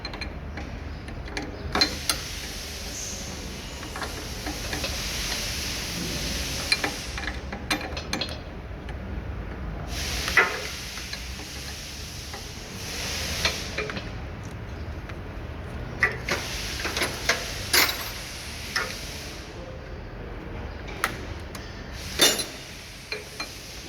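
Metal clinks and knocks of tools and fittings, scattered and irregular, during hand work refitting air lines on a truck's air distributor valve, over a steady background hiss.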